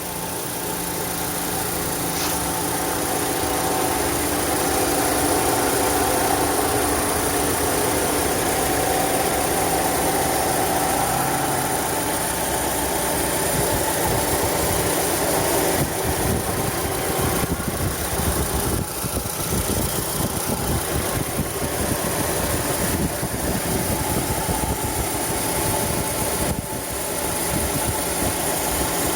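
2011 Chevrolet Cruze 1.8-litre petrol engine idling with a strange grinding noise, at 207,000 km. The water pump, serpentine belt and tensioner have already been replaced without curing it, so the cause is unknown. About halfway through, the sound turns rougher and more fluttering.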